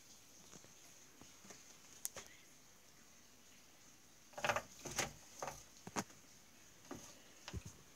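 Scattered light clicks and knocks from handling the camera and a bell rope, loudest in a cluster about four and a half seconds in, with single knocks about six and seven and a half seconds in; no ringing bell is clear.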